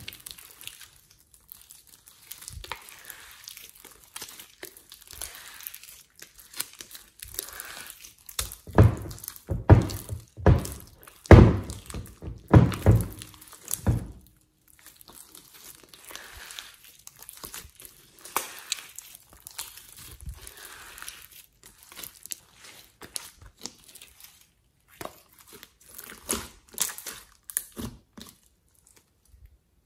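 Slime being stretched, folded and squeezed by hand: sticky crackling and squelching, with a run of louder thumps about nine to fourteen seconds in and scattered clicks after.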